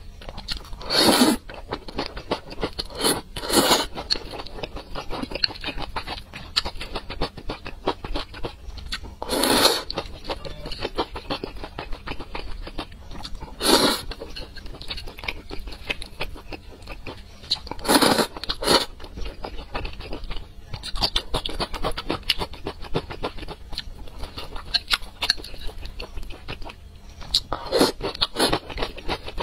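Close-miked eating of thick noodles in spicy sauce: wet chewing and small mouth clicks throughout, with a short loud slurp every few seconds, six in all.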